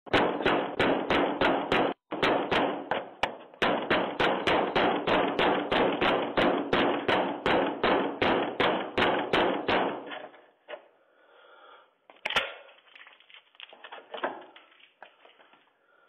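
A fist pounding on a door, picked up close through a Ring doorbell camera's microphone: about three heavy blows a second for ten seconds, briefly breaking off twice. The pounding then fades to a few light knocks, and one more single loud thump comes a couple of seconds later.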